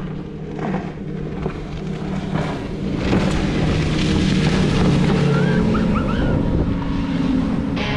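Motorboat engines running at speed, with rushing water and wind buffeting the microphone. The engine drone swells from about three seconds in as the Genesis Craft 750XL Islander passes close.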